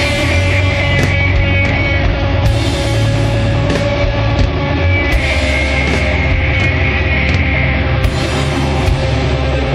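Doom metal song playing: heavily distorted guitars and bass hold slow, low chords, with cymbal crashes every few seconds.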